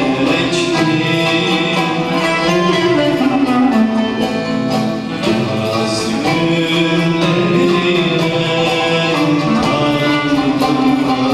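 Male vocalist singing a Turkish art-music song live, accompanied by an ensemble of plucked and bowed string instruments including an oud. The sound is a continuous, steady stretch of melody.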